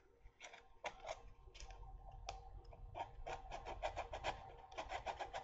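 Hand sanding of a 2 mm frame part on a small model aircraft: faint, scratchy rubbing strokes, a few scattered ones at first, then quick, even back-and-forth strokes from about three seconds in.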